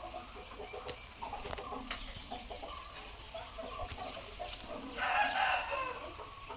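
Chickens clucking in a run of short calls, with one louder, longer call about five seconds in.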